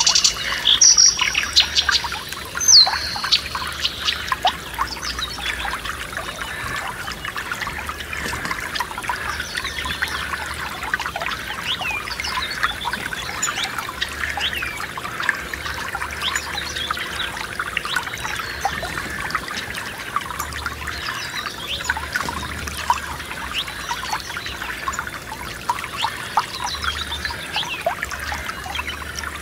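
Forest stream trickling and splashing over stones, with small birds chirping and singing above it. Several clear bird notes come in the first few seconds, and fainter calls follow now and then.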